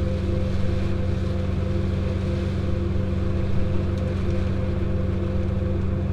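Farm machinery engine running steadily at a constant speed, a low even hum with a faint higher whine above it.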